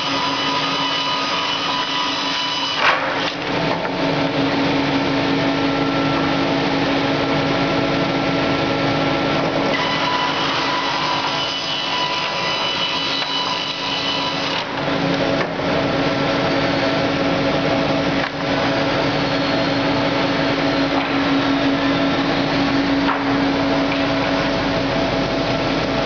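Hydraulic board edger running steadily with a constant hum and high whine, boards being fed through and sawn along their edges, with a few short knocks along the way.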